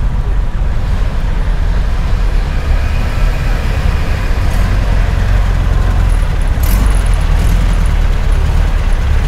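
Engines of classic emergency vehicles in a slow parade, a deep steady rumble of vehicles rolling past, with a brief hiss about two-thirds of the way through.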